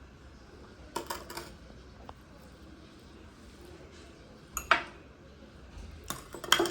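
Dishware clinking and knocking during a meal, in three short clusters: about a second in, just before five seconds, and the loudest near the end.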